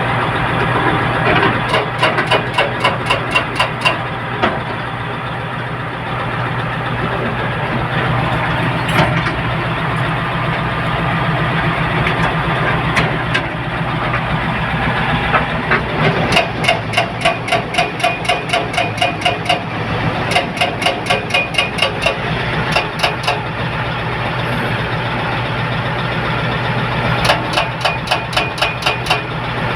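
Heavy construction machinery's diesel engines running steadily, with several spells of rapid, even pulses at about five a second, each lasting two to three seconds.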